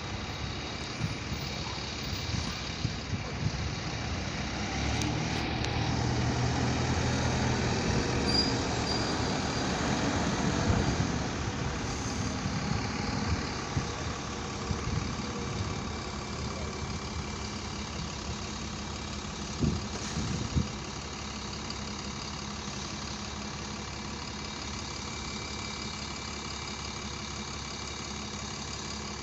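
Single-decker bus engine pulling away across a bus station, getting louder for several seconds and then fading as it moves off. Two sharp knocks come about two-thirds of the way in, and a steady engine idle hum continues after that.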